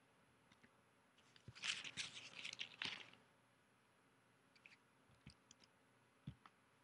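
Faint computer keyboard typing: a quick run of keystrokes from about one and a half to three seconds in, then a few scattered soft clicks and a light knock near the end.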